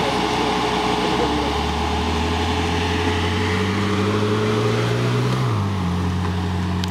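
Ferrari 458 Italia's 4.5-litre V8 pulling away gently at low revs. Its note rises slowly, then drops with an upshift a little over five seconds in and runs on steadily.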